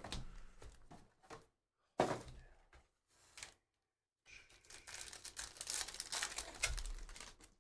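Foil trading-card packs rustling and knocking as they are pulled from a Panini Prizm hobby box and squared into stacks on a table. From about four seconds in, a foil pack is torn open with a long run of crinkling.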